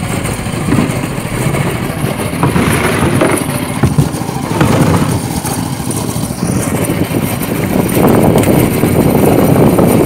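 Fishing boat's engine running, under a steady rush of wind and sea noise that grows a little louder near the end.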